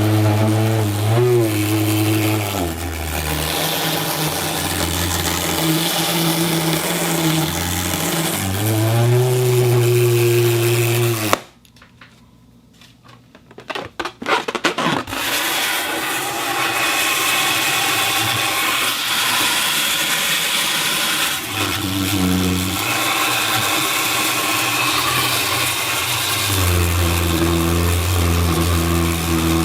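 Foley sound effect made with a balloon and a turntable: a loud, buzzing drone that bends up and down in pitch like a motor. It cuts out for about three seconds near the middle, with a few clicks, then comes back.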